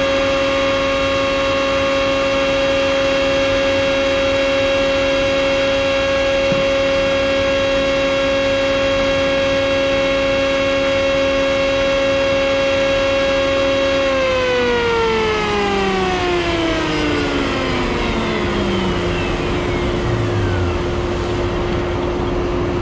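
Table-mounted router running with a steady high whine, then switched off about 14 seconds in, its pitch sliding down over several seconds as the bit spins down. A dust collector keeps humming underneath.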